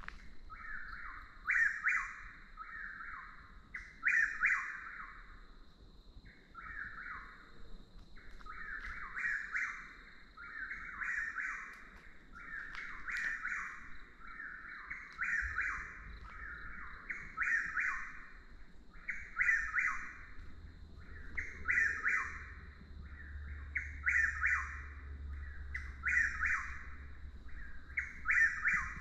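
Chuck-will's-widow singing its repeated 'chuck-will's-widow' call, one phrase about every two and a half seconds without pause.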